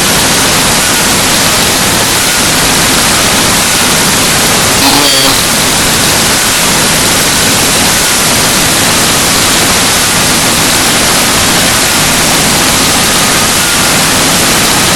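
Loud, steady static hiss across the whole range, a faulty audio track rather than any real sound. A brief faint tonal blip comes about five seconds in.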